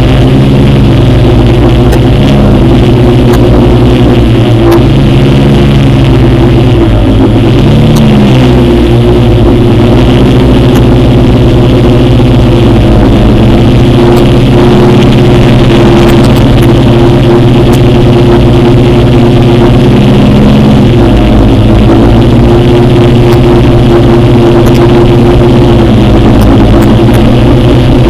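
Quadcopter drone's electric motors and propellers buzzing close to the onboard camera, a loud, steady hum made of several pitches that shift up and down briefly a few seconds in and again about twenty seconds in as the motors change speed.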